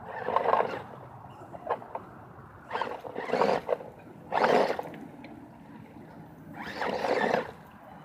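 Redcat Gen8 RC crawler truck driving in four short bursts of throttle, its motor and tyres working over the ground, with quieter gaps between.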